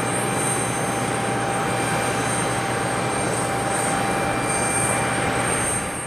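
Aquila A210 light aircraft's engine and propeller droning steadily after takeoff, then dropping away quickly near the end.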